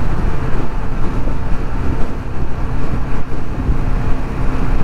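Honda Navi 110's small single-cylinder engine running steadily at cruising speed, mixed with wind noise on the microphone.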